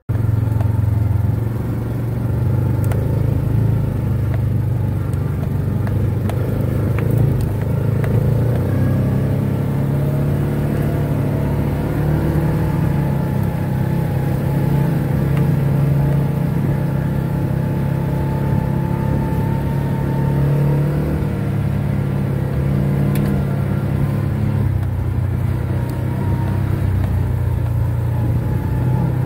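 Side-by-side UTV engine running steadily while driving, its pitch rising and falling slightly.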